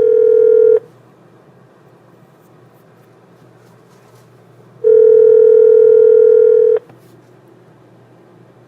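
North American telephone ringback tone of an outgoing call, heard through the phone: a steady tone that ends just under a second in, pauses about four seconds, then sounds once more for about two seconds. It means the line is ringing at the other end and has not yet been answered.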